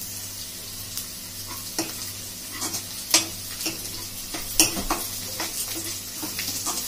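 Sliced onions, garlic and green chillies sizzling in hot oil in a non-stick kadhai, the garlic being browned, while a steel ladle stirs and scrapes through them. The ladle knocks against the pan every so often, most sharply about three and four and a half seconds in.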